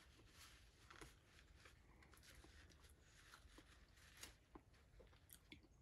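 Near silence, broken by a few faint small clicks and rustles of fingers picking at meat and a napkin, about a second in and again near the end.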